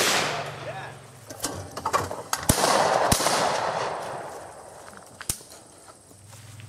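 Shotgun shots at clay targets: one at the start and a louder one about two and a half seconds in, each trailing off in an echo, with a few sharper, fainter cracks in between.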